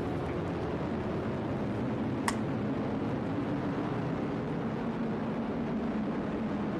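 Atlas V rocket launching Boeing's Starliner: a steady low rumble of its engines in flight, with one sharp click about two seconds in.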